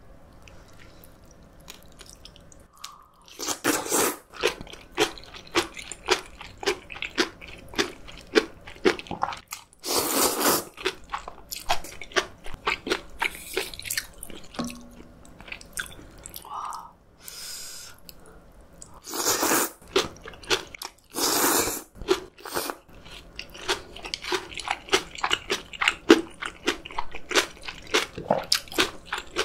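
Close-miked chewing of fresh napa cabbage kimchi (geotjeori) eaten with cold soybean noodles: a dense run of wet crunches that starts a few seconds in. A few longer, louder bursts come near the middle.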